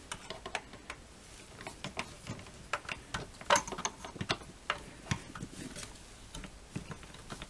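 Irregular light clicks and taps of a screwdriver winding in the two carburetor mounting screws on a Pioneer P40 chainsaw, with a sharper tap about three and a half seconds in.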